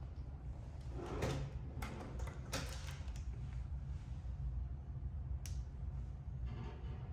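A vanity drawer being slid and handled, with several sudden knocks and rattles in the first three seconds and a sharp click later, over a steady low hum.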